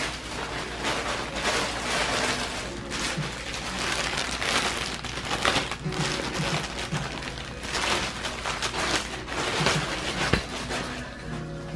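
Clear plastic packaging bag crinkling and rustling as it is handled and opened, a continuous run of crackles.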